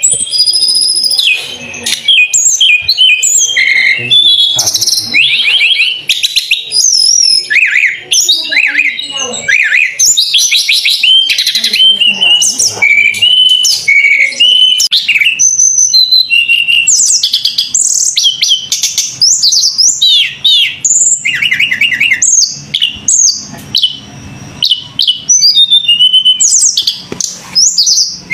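Songbird singing a loud, continuous, varied song of fast trills, chirps and rising and falling whistles, with only brief pauses.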